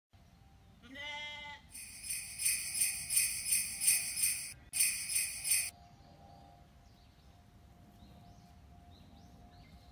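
Jingling bells added as a sound effect, a loud pulsing shake in two stretches of about three and one seconds, preceded about a second in by a short goat bleat.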